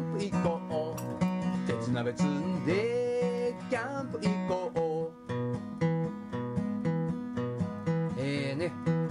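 Background music with acoustic guitar.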